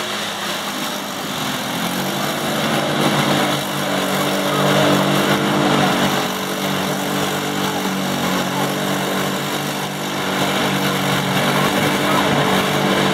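Two ATV engines running hard at high revs as the quads drive through deep, watery mud. Their pitch holds fairly steady, swelling a little about four seconds in and again near the end.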